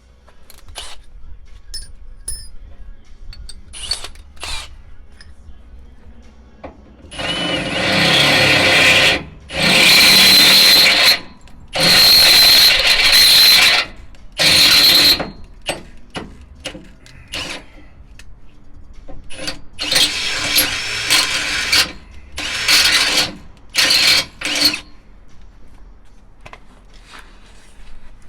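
Electric drill boring holes into metal truck frame rails and brackets for the air tank mounts, in several runs of one to two seconds each through the middle stretch. Light clicks and knocks of handling come before and between the runs.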